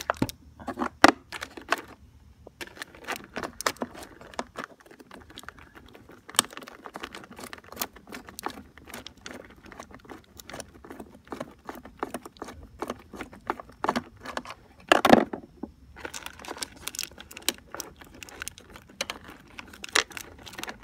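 Hands working in a scooter's battery compartment: irregular clicks, taps and rustling as wires and metal and plastic fittings are handled, with one louder clunk about fifteen seconds in.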